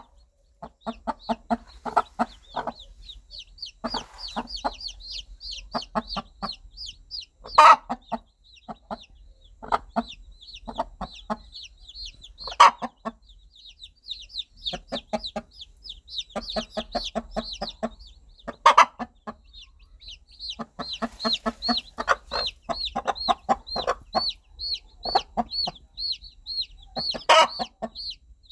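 Mother hen clucking in quick runs of short, rapid pulses while her baby chicks peep almost without pause in high, short, falling notes. Four louder single calls stand out, about every five to six seconds.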